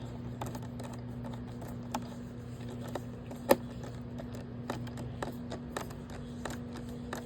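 Scattered small clicks and taps of a screwdriver working a screw into the plastic housing of a robot vacuum, with one sharper click about three and a half seconds in.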